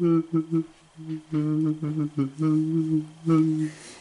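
A person's voice humming in short held phrases, mostly on one low note, with brief pauses between them.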